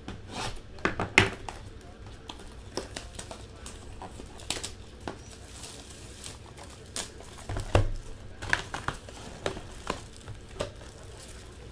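Clear plastic shrink-wrap crinkling and tearing as a sealed box of trading cards is unwrapped and opened, with scattered taps and clicks of cardboard being handled.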